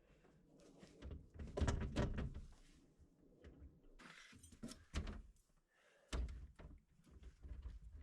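A series of clunks and knocks as parts of the skid steer's seat are handled and fitted, loudest about one and a half to two seconds in, with a few more around four, five and six seconds in.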